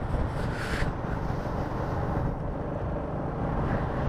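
Steady riding noise from a Royal Enfield Classic 350 motorcycle underway: low rumble of its single-cylinder engine and the road with wind on the microphone, and a brief hiss about half a second in.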